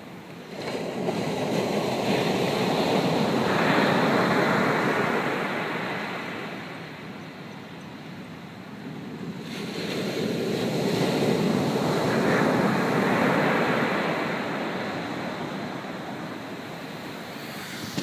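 Pacific Ocean surf on a sandy beach: two waves break and wash up the shore, each swelling to a peak over a few seconds and then drawing back.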